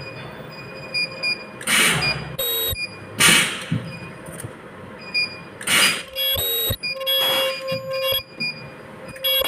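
Ultrasonic plastic welding machines working: four short hisses of air about two seconds apart, with thin high-pitched whining tones and short beeps between them.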